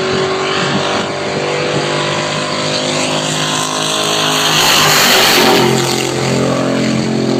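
JCB GT backhoe dragster's V8 engine running loud and steady, growing louder about halfway through and then settling onto a lower pitch as it goes past.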